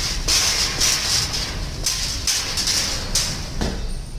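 Rustling, hissing handling noise on a handheld phone's microphone as it is carried while walking, swelling and fading unevenly over a low rumble, and easing off near the end.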